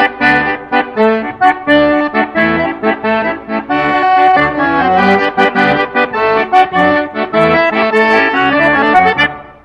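Instrumental close of a waltz song: a melody over chords and bass notes, fading out just before the end.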